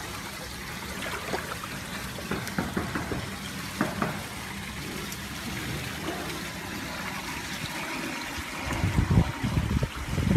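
Swimming-pool water trickling and lapping, with small scattered splashes and clicks; loud low rumbling bumps come in near the end.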